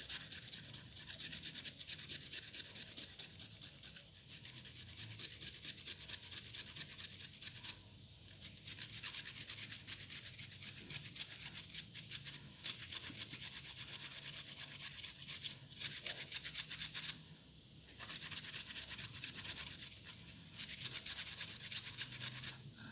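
Kencur (aromatic ginger) root being grated on a metal cheese grater: rapid, continuous rasping strokes, with a couple of brief pauses.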